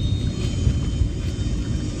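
Steady low rumble of an airliner heard from inside the cabin, with a thin steady high whine from the jet engines above it.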